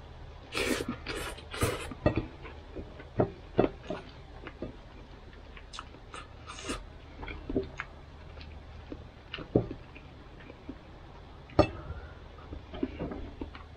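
Mouth sounds of someone eating by hand: a few loud smacks about half a second to two seconds in as a handful of rice and pork goes into the mouth, then chewing with scattered small smacks and clicks. A steady low hum runs underneath.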